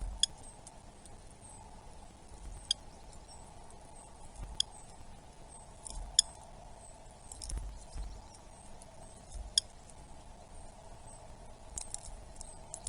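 A bird giving short, sharp chip calls, one every couple of seconds, with faint high chirps between them over a steady background hiss.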